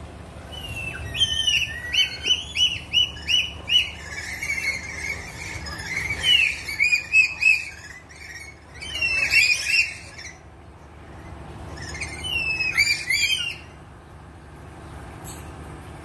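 Red lories calling: shrill, repeated screeches in four bursts. The first burst is a run of about six quick, evenly spaced calls.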